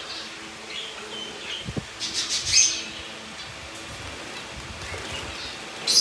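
Caged birds chirping with short, high calls, then a flurry of wing flapping and rustling about two seconds in, loudest a little past the middle, with another short flurry at the end as a hand reaches into the wire cage.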